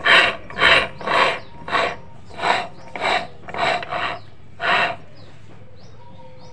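Gears and axle of a Yamaha Mio 125's final-drive gearbox rasping as the rear axle is worked back and forth by hand: about nine rough strokes, roughly two a second, stopping about five seconds in.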